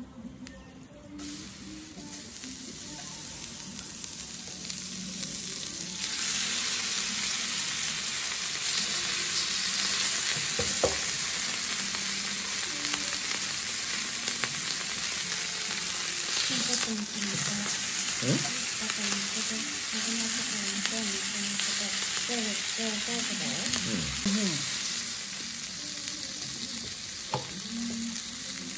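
Slices of venison sizzling on a hot griddle plate. The sizzle starts about a second in and grows much louder about six seconds in, then carries on as a steady hiss.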